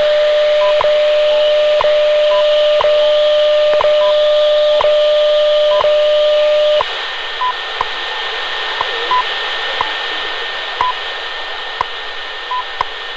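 Shortwave radio receiving the WWV time signal on 10 MHz through static hiss: a steady low tone marked by a tick about once a second, with short higher-pitched beeps from a second time-signal station mixed in. About seven seconds in the tone stops, leaving the ticks and beeps in the hiss.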